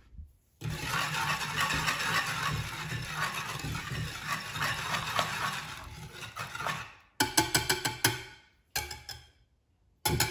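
Wire whisk beating a runny mix of eggs, sugar and oil in a glazed terracotta bowl: a long run of quick clattering strokes against the bowl. Near the end it breaks into short bursts with pauses between.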